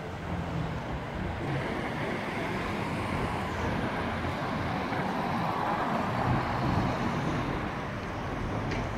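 City street traffic noise: a steady wash of passing cars, swelling a little around the middle.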